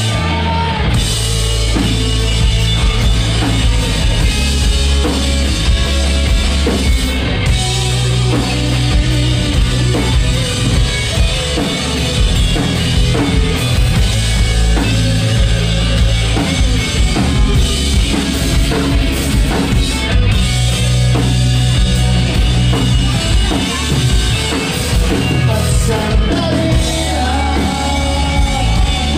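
Live rock band playing loudly: electric guitars over a drum kit, with a heavy low end.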